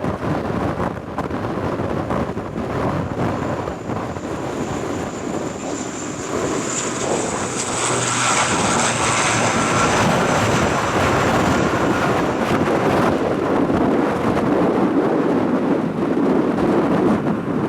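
Airliner's engines passing, a high whine that builds and fades in the middle, over a steady rumble of strong wind buffeting the microphone.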